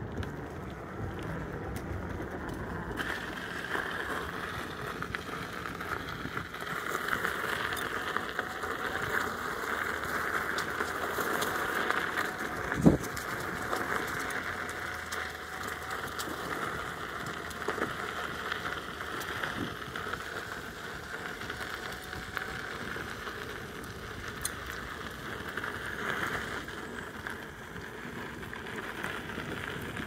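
Electric unicycle rolling off a wooden boardwalk onto a gravel trail, its tyre crunching steadily over the gravel, with one sharp knock near the middle.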